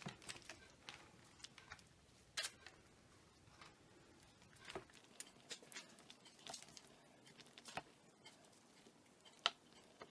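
Near silence broken by faint, scattered soft taps and dabs, every second or two, as a basting brush spreads an olive oil mixture onto smashed boiled potatoes.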